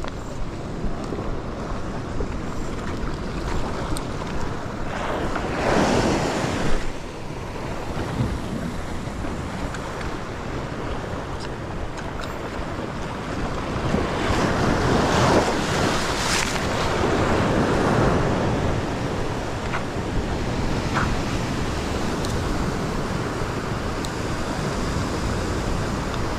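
Ocean swell surging and washing over a rock ledge, with wind buffeting the microphone. Two bigger waves break and wash up, about six seconds in and again around fifteen seconds.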